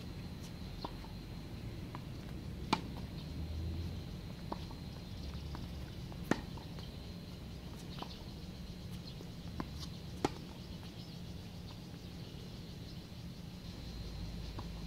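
Tennis ball struck back and forth by rackets in a rally, with bounces on a hard court: sharp pops every second or two, some louder than others, over a steady low hum.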